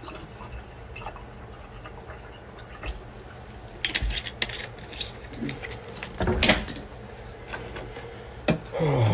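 Plastic water bottle's cap twisted open, a short crackle about four seconds in, followed by louder handling knocks and rustles around six and a half seconds and another click near the end, over a steady low hum.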